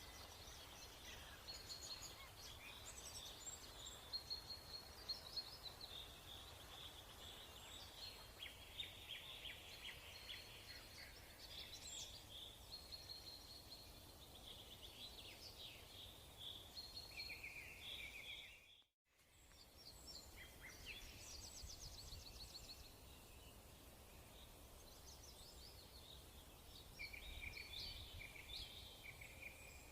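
Faint birdsong: several birds chirping and twittering over a low background hum, with the sound dropping out completely for a moment about nineteen seconds in.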